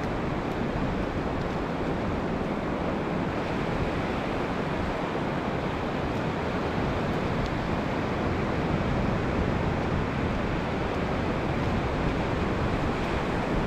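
Sea surf washing onto the beach, mixed with wind buffeting the microphone: a steady rushing noise.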